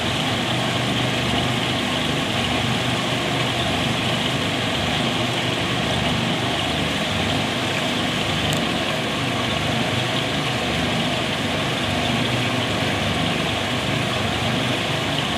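Screw-press dewatering machine running steadily, a continuous mechanical hum with a low drone, as it squeezes cattle-manure slurry into solid fibre.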